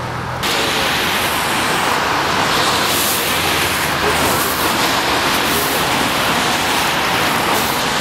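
Motorway traffic passing on a wet road: a steady hiss of tyres on wet asphalt that jumps louder about half a second in and swells a little as cars go by.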